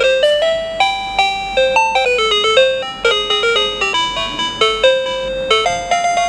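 Toy cash register's electronic sound chip playing one of its built-in melodies: a simple tune of buzzy beeping notes, one at a time, stepping up and down in pitch.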